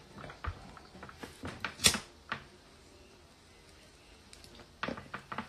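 A handheld lighter being flicked: a few small clicks and a sharp strike about two seconds in, then quiet while the flame is held to a smoke, with a few more handling clicks near the end.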